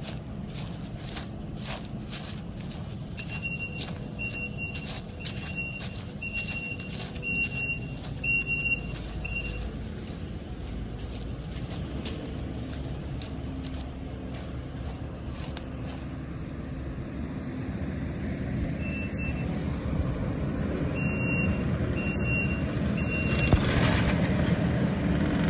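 Diesel engine of a skid steer running steadily, with its backup alarm beeping about once a second from a few seconds in to about ten seconds, and again briefly near the end. The engine grows louder toward the end.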